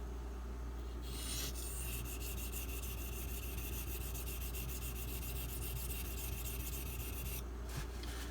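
A Super Gold (SG2) steel knife blade grinding on a Shapton Pro 1000-grit waterstone, a steady wet scraping that starts about a second in and stops shortly before the end.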